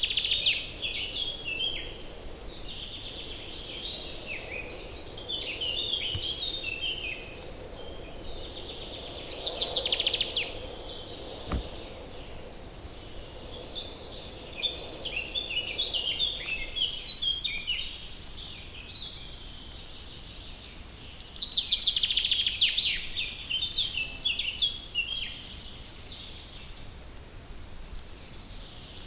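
Birds chirping and singing, many short overlapping calls with louder bouts of rapid trills about a third of the way in and again past the two-thirds mark.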